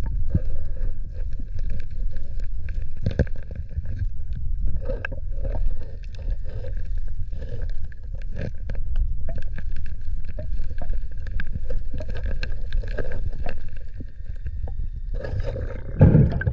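Underwater noise on a submerged camera: a steady low rumble of moving water, with scattered clicks and scrapes as a hand digs through sand and pebbles on the seabed, and a louder rush of water near the end.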